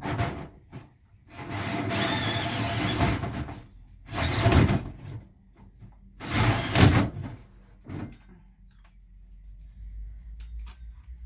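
Cordless drill spinning a hole saw as it cuts up through the bus's metal roof, in three bursts: a long one of about two seconds and two of about a second, with a short blip after. The cut is nearly through.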